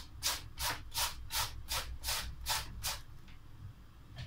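White cabbage being shredded with a hand-held shredder, the blade scraping across the head in even strokes, about three a second, stopping about three seconds in.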